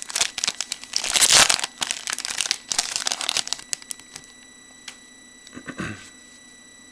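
A trading-card pack wrapper being torn open and crinkled, dense for the first few seconds and loudest about a second in, then dying away to a brief rustle near the end.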